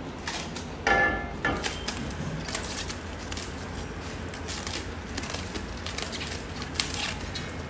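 Plastic wrapping crinkling and crackling as a small taped packet holding an Allen key is pulled and torn off a chrome chair frame, in many small irregular crackles, with a short squeaky sound about a second in.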